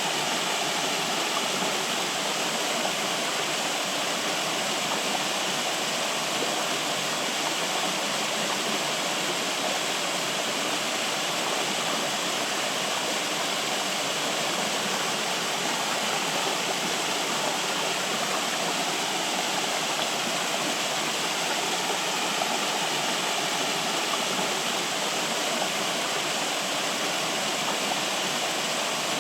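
Flowing water running steadily, an even rushing sound with no breaks or changes.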